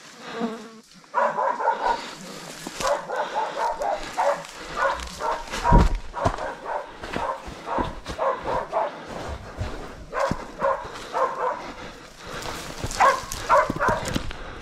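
Kelpie working dogs barking in quick runs of short barks while chasing a wild pig, with a heavy thump about six seconds in.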